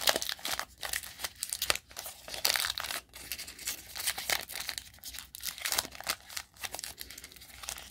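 Foil wrapper of a Diamond Kings baseball card pack being torn open and crinkled by hand: a continuous run of irregular crackles and rips.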